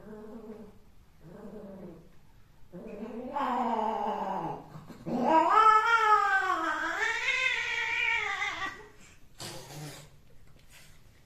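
Domestic cat caterwauling. Two short yowls come first, then a longer one, then a long, loud yowl that wavers up and down in pitch before breaking off; a brief rustle follows near the end.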